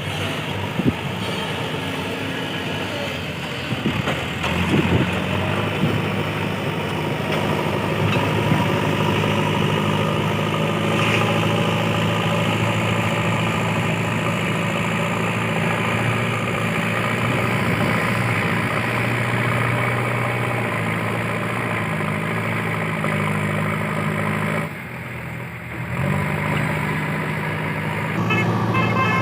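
Diesel engine of a JCB 3DX backhoe loader running steadily while it works gravel. There are a few clanks in the first few seconds, and the engine sound dips briefly near the end.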